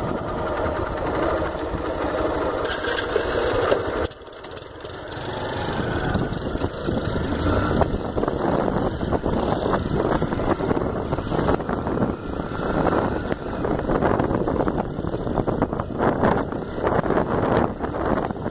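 Motorcycle engine running as the bike is ridden, mixed with wind noise on the microphone. About four seconds in the sound drops off abruptly, then builds back into a steady, gusty rush.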